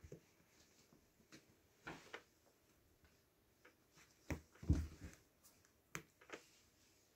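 Kittens shifting about on a padded fabric cat bed: scattered soft rustles and small clicks, with a louder bump and rustle about four and a half seconds in.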